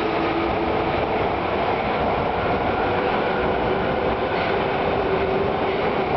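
Osaka Midosuji Line 30000 series subway train departing and running past at close range: a loud, steady rumble of wheels on rail with a faint humming motor tone.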